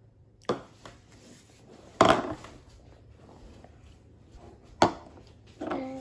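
Three sharp knocks on a wooden tabletop, the loudest about two seconds in, followed near the end by a short vocal sound from a small child.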